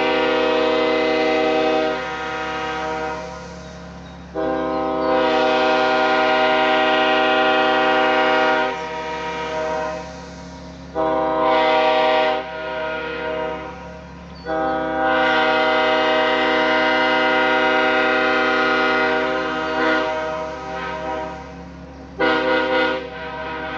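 Nathan Airchime K5HL five-chime train horn (bells 1L, 1, 2, 3, 4), an early sand-cast Ferromex horn, sounding its chord in a series of blasts: long blasts of several seconds, a short one in between, and two quick toots near the end, each tapering off between blasts.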